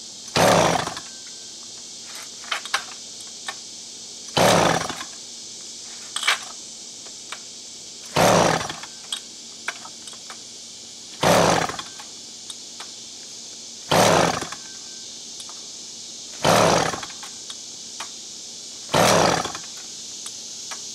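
Vintage McCulloch Pro Mac 10-10 chainsaw being pull-started seven times, each recoil-starter pull turning the engine over with a short rasping whirr that does not catch. The saw is primed through the spark plug hole and will not fire, which the operator puts down to too much gas.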